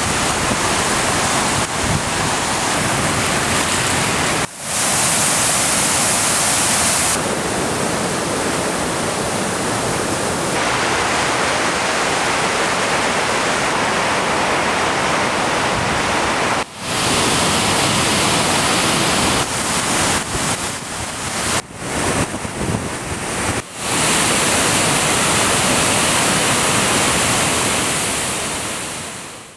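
Black River in flood: heavy whitewater and falls pouring over rock ledges and a dam, a loud steady rush of water. A few sudden brief dropouts break it, and it fades out at the end.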